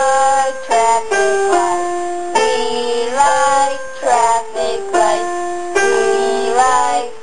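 A song: a high, thin-sounding singing voice carrying a melody of held notes over a plucked string accompaniment.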